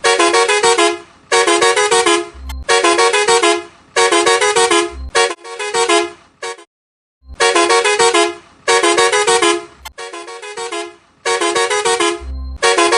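A musical truck horn plays the WhatsApp ringtone tune again and again, in short stepped-note phrases about a second long with brief gaps between them. There is a silent break about halfway through.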